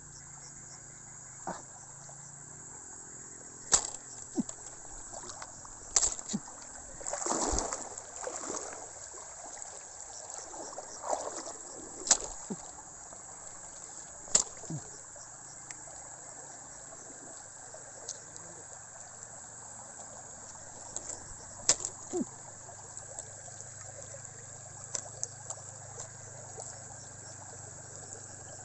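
Water splashing and sloshing in a shallow river, with several sharp splashes and a longer slosh about seven to nine seconds in, over a steady high chirring of crickets.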